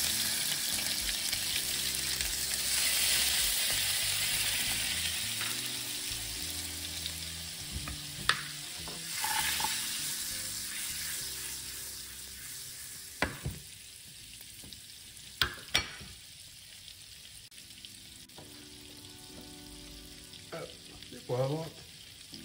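Butter melting and sizzling in hot oil in a nonstick frying pan, with the hiss loudest at first and dying down over the next ten seconds or so. A few sharp clicks come in the middle, and near the end a pepper mill grinds briefly.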